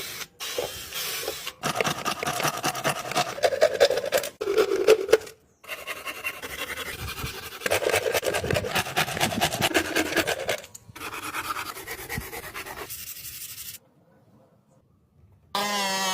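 Homemade mini table saw's small spinning blade cutting, a rasping, scraping sound in several short stretches that cut off abruptly, then a few seconds of near silence; music starts right at the end.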